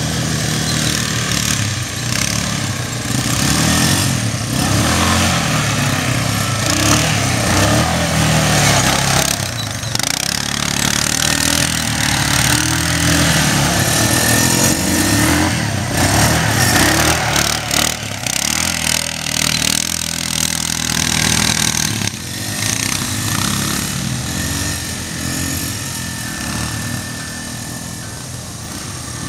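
A Suzuki LT-Z90 youth ATV's small single-cylinder four-stroke engine revving up and easing off as it is ridden around a dirt track, under a steady rushing noise.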